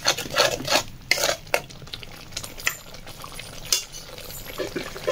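A spoon stirring and scraping masala paste frying in a metal kadai: a run of quick scrapes and clinks against the pan in the first second and a half, then a few single scrapes, over a faint sizzle of the frying masala.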